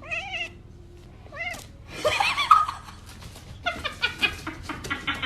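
A pet animal calling: a few separate wavering, pitched cries, then a quick string of short calls in the last second and a half.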